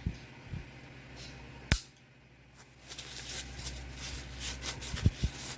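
A single sharp click about two seconds in, then a run of light clicks and rattles with two sharper clicks near the end, as the parts of a 1911 pistol are fitted back together.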